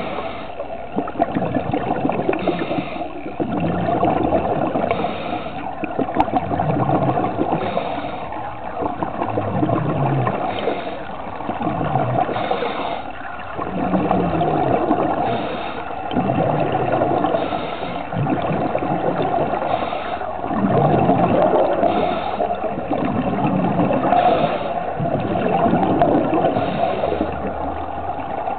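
Running water gurgling continuously, swelling and easing every couple of seconds.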